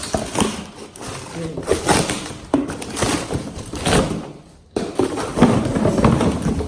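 Rustling and knocking of packaging as a wet/dry vacuum's hose and parts are handled and taken out of the box, with irregular crinkles and light bumps and a brief pause a little over halfway.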